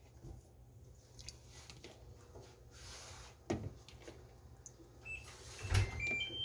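Peeled boiled eggs being set into a pot of soy sauce by hand: soft knocks and handling noise, a knock about three and a half seconds in and the loudest thud near the end. A few short high beeps sound near the end.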